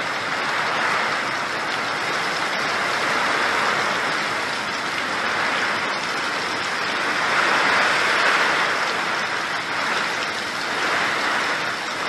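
Heavy rain pouring down, a steady hiss that swells and eases a little, loudest about eight seconds in.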